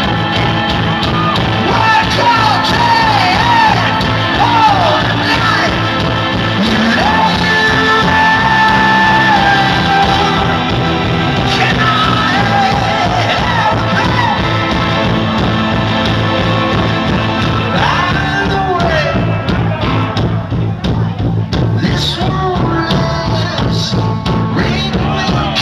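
Rock band playing live: a male singer holds long notes that slide between pitches, over guitars, bass and drums.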